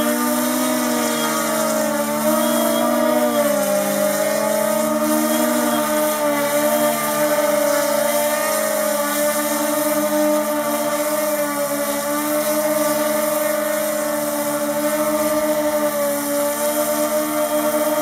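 Three propellers of a large 9 kg tricopter-style model UAV humming steadily in a low hover, with several tones whose pitch wavers up and down as the motors keep correcting. The wavering goes with a hover that has no stability.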